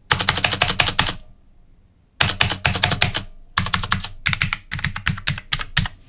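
Battletron budget mechanical keyboard with blue switches typed on rapidly: three quick runs of clicky keystrokes, the first broken off by a pause of about a second.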